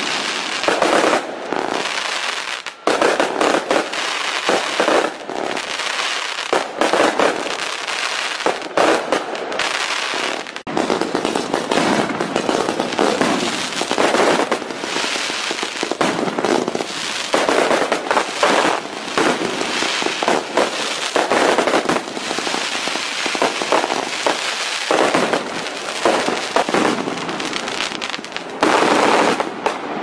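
Fireworks going off in a dense, continuous barrage: many overlapping bangs and crackles with no pause between them.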